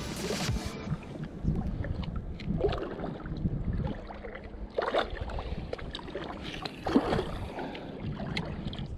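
Wind buffeting the microphone and small waves lapping around a float tube on open water, with a few short knocks about five and seven seconds in.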